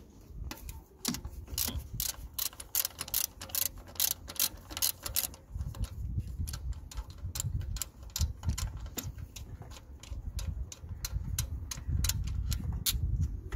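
Ratchet wrench clicking as a 12 mm thermostat housing bolt is loosened, in quick irregular runs of sharp clicks that are densest in the first half and thin out later.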